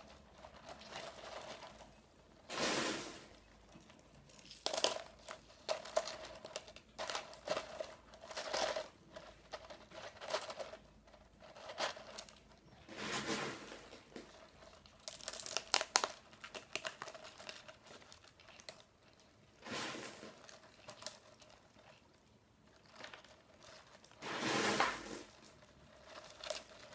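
Expanded clay pebbles rattling and crunching in a thin plastic cup as they are filled in around the roots and the cup is shaken to settle them, with the plastic crinkling. The sound comes in irregular bursts, a few of them longer shakes.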